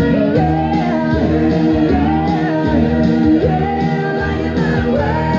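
A pop song playing loudly: a singer's melody over an instrumental backing with guitar.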